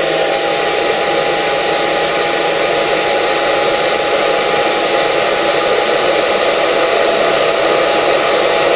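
Handheld hair dryer running steadily on hot, a constant rush of air with a steady motor whine in it.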